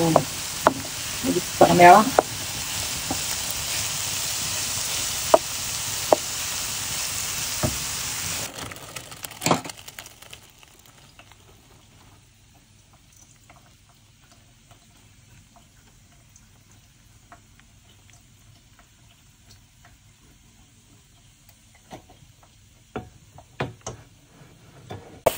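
Food sizzling loudly in a frying pan with clicks of a utensil stirring it; the sizzle cuts off suddenly about eight seconds in, leaving only faint, sparse clicks and taps, with a few louder ticks near the end.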